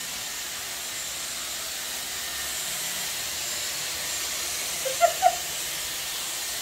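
Corded hot air brush (dryer brush) blowing with a steady hiss while styling hair. Two short, rising squeaks come about five seconds in.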